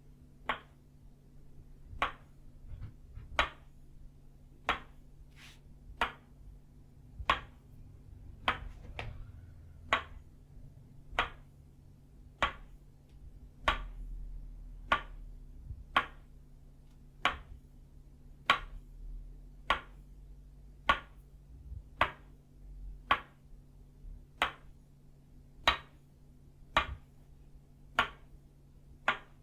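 An itauba-wood tok sen mallet striking a wooden stake in a slow, steady rhythm of sharp wooden knocks, roughly one every second and a quarter, with a few softer taps in between.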